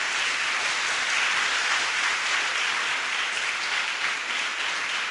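Audience applauding, a steady wash of clapping that tapers off near the end.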